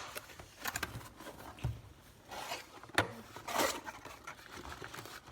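Product packaging being opened and handled by hand: scattered rustles and scrapes, with a sharp click about three seconds in.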